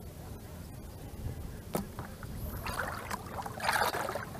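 Shallow water splashing and sloshing as hands and legs move through it, starting about two-thirds of the way in, after a quieter stretch with one short sharp tap.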